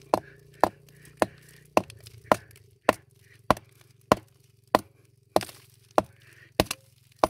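Steel hand tool striking a quartz vein in hard rock, a steady run of sharp blows about every 0.6 s, over a faint steady hum.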